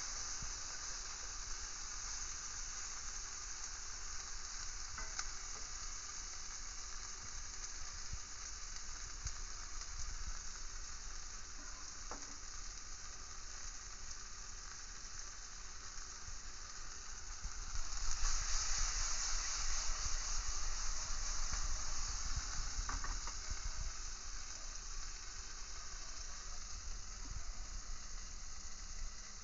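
Food frying in hot oil in a cast-iron skillet: a steady sizzle that grows louder for about five seconds past the middle, then settles back.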